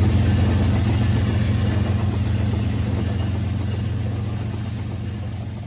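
Toy train's small electric motor and gearing humming steadily as the wagons rattle along plastic track, gradually getting quieter as the train moves away.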